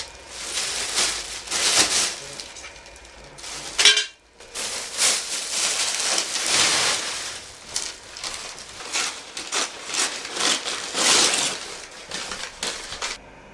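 Plastic rubbish bags rustling and crinkling as they are handled and filled, in irregular bursts with a short pause about four seconds in.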